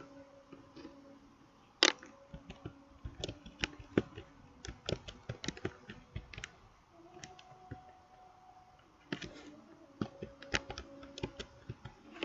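Irregular sharp clicks and taps, several a second at times, with a louder one about two seconds in, over a faint steady low hum.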